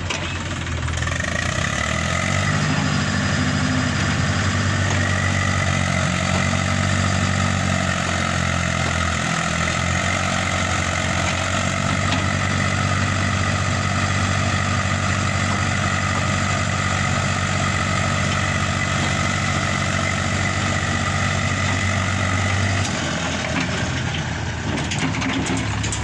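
Eicher tractor's diesel engine running steadily at raised revs, with a high whine above the engine note, while it tips its loaded trailer. The engine note drops away a few seconds before the end.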